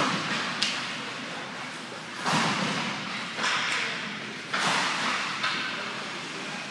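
Ice hockey practice: sharp cracks of stick and puck hits with scraping skates on the ice, each trailing off in the echo of an indoor rink. About five hits, the loudest a little over two seconds in and again at about four and a half seconds.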